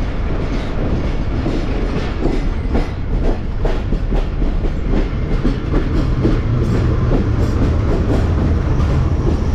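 Moving passenger train heard from an open coach doorway: wheels clattering over rail joints with steady running noise. Partway through, an oncoming diesel-electric locomotive passes close on the next track, and a low steady drone grows under the clatter.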